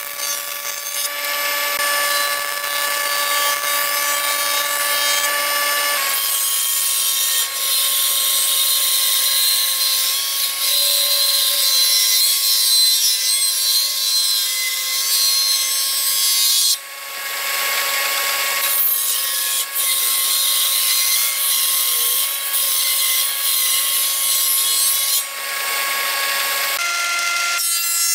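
Combination jointer-planer running with a steady motor and cutterhead whine. Its knives plane boards in two long passes of loud, hissy cutting noise, with a short lull between them about two-thirds of the way through.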